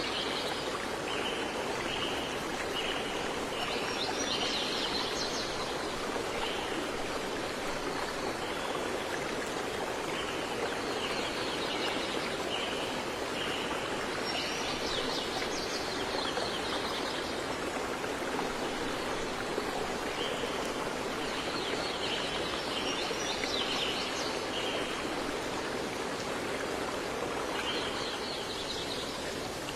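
Steady rush of running water, with a bird repeating the same song about every nine to ten seconds: a row of short, evenly spaced notes followed by a quick, higher run of notes.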